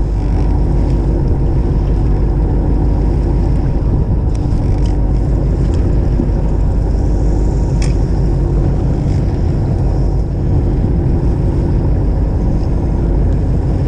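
Fishing boat's engine running steadily with a low rumble, mixed with wind and water noise around the hull.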